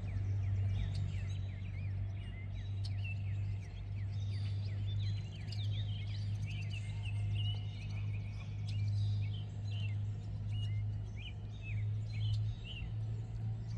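Small birds chirping and calling, many short quick notes overlapping one another, over a steady low hum.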